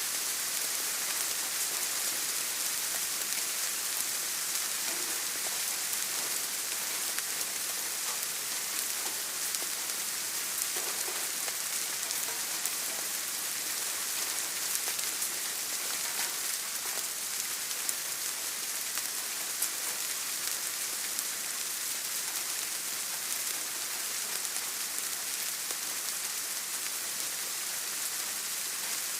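Steady rain falling, an even hiss with faint scattered drops.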